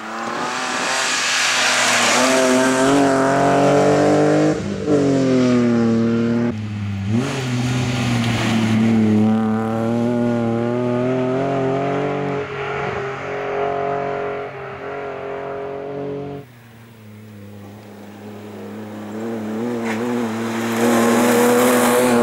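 BMW E36 rally car's engine revving hard through the gears, its pitch climbing and then dropping sharply at shifts and lifts as it passes. After a sudden change about two-thirds of the way in, the engine note is steadier and grows louder as the car approaches again.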